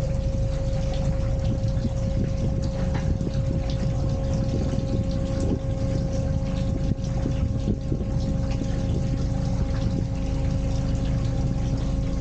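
Narrowboat engine running steadily with a constant hum, with water churning in the lock alongside the hull.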